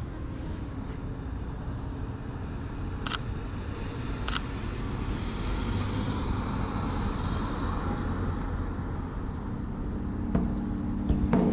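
City street traffic: a steady rumble of passing cars, swelling as a vehicle goes by a little past the middle. Two sharp clicks come about three and four seconds in.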